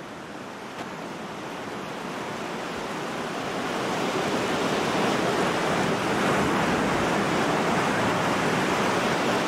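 Waves washing on a shore: a steady rushing noise that swells over the first five seconds and then holds.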